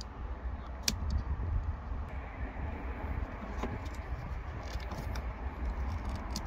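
A couple of light clicks from a grey plastic wiring-harness connector being unplugged and handled, over a steady low rumble.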